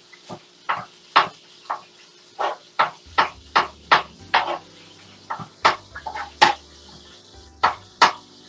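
Kitchen knife chopping fresh spinach on a cutting board: a string of sharp knocks as the blade hits the board, irregular at about two a second, with a brief pause about seven seconds in.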